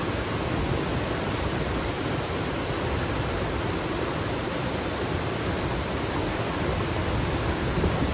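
A high waterfall plunging into its pool, making a steady, dense rushing.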